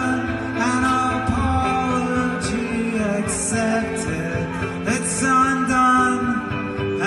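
Live solo performance: a man singing a slow song to his own electric guitar, amplified through a PA.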